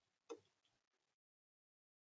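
A sharp tap close to the feeder camera's microphone, followed by a fainter one, part of an irregular run of taps about every half second; the sound then cuts off completely about a second in.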